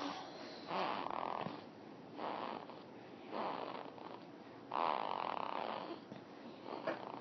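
Snoring: four separate snores at uneven intervals of about a second or so, with a shorter, sharper sound near the end.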